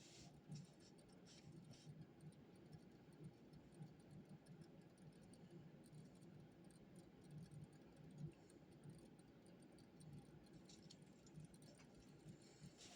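Near silence: quiet room tone with faint, light clicks and scratches of desk study work, a few more of them in the last few seconds.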